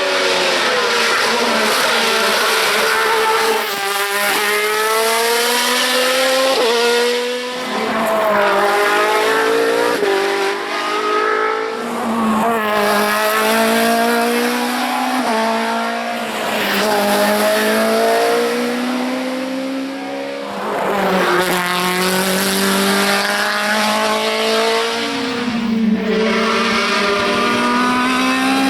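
Hillclimb race car engines at full throttle, the pitch climbing through each gear and dropping sharply at every upshift, with shifts every second or two. Several cars are heard in turn.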